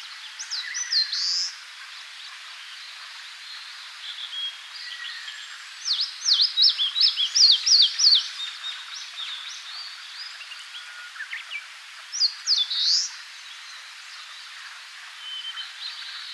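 Eastern crowned warbler singing: three bright, high-pitched phrases of quick repeated downslurred notes, the longest a run of about a dozen notes some six seconds in. Other birds call faintly behind it.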